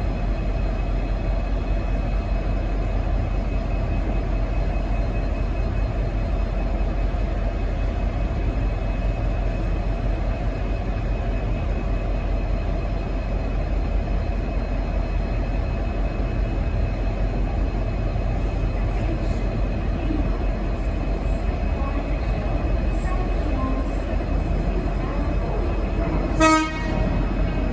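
V/Line N class diesel-electric locomotive's EMD two-stroke V12 diesel running with a steady low drone, then a short low-note horn toot near the end.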